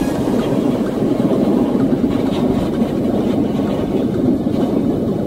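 Gas burner flame running with a steady rushing noise as it heats a block of ice.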